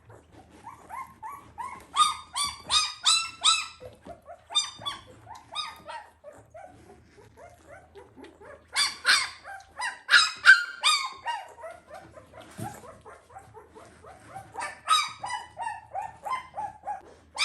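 Newborn puppy crying in repeated bouts of short, rapid, high-pitched yelps and squeals, with fainter whimpers between the bouts.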